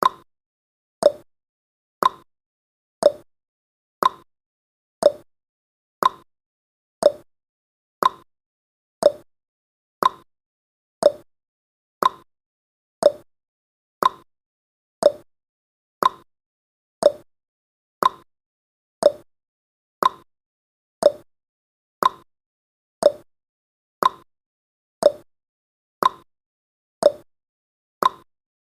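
Countdown timer's clock-like ticking sound effect: about 29 short ticks, one each second, alternating between a higher and a lower tick, tick-tock fashion.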